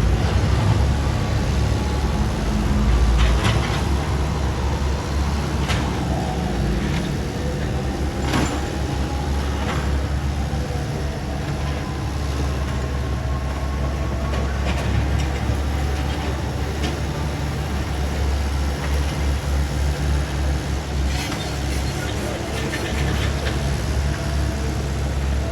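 Excavator's diesel engine running steadily under work, with a few sharp knocks scattered through.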